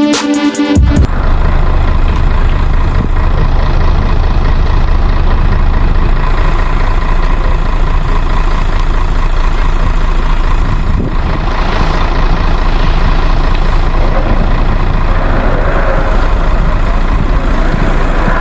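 Music stops about a second in, giving way to a loud, steady low rumble with noise over it.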